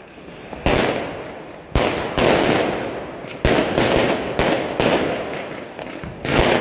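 Aerial fireworks bursting overhead: about seven sharp bangs in quick succession, roughly a second apart, each trailing off in a long echoing crackle and rumble.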